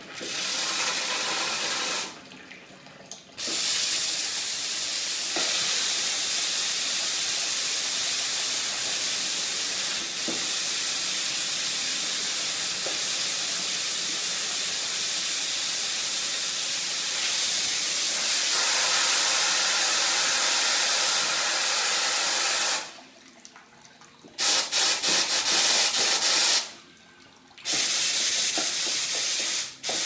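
Steam wands of a three-group Elektra Maxi espresso machine blowing off steam with a loud, steady hiss. The valves are shut off briefly three times, and the steam comes in short choppy spurts just before the last break.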